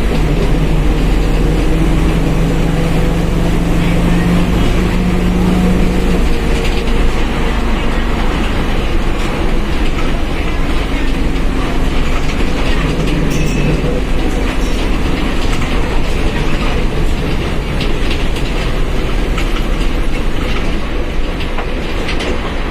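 Mercedes-Benz OF1721 BlueTec 5 bus under way: steady diesel and drivetrain rumble with rattling from the body. A steady whine from the differential rises out of it for the first several seconds and again briefly around the middle.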